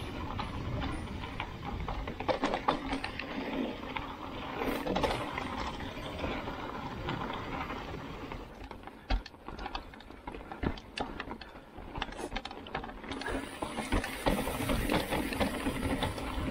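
Mountain bike riding down a dirt trail: tyres rolling over the ground with an irregular clatter of sharp knocks and rattles from the bike's frame and chain over bumps.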